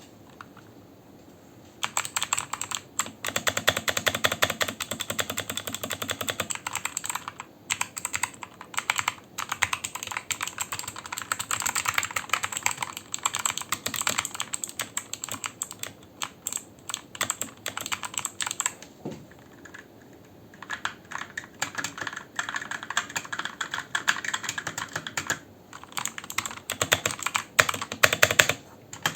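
Fast typing on a mechanical gaming keyboard: a dense clatter of key clicks that starts about two seconds in, stops for a couple of seconds about two-thirds of the way through, then picks up again.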